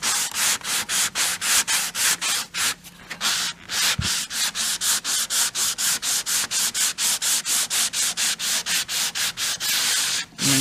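Hand block-sanding with sandpaper on a small foam sanding block, rubbed back and forth over a panel sprayed with polyester primer filler (Evercoat Slick Sand). The strokes come quickly, about four a second, with a brief pause about three seconds in.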